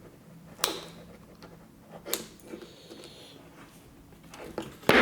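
Hands handling a plastic twist-lock plug and small tools: a few sharp clicks and knocks, the loudest near the end, with faint ticks between.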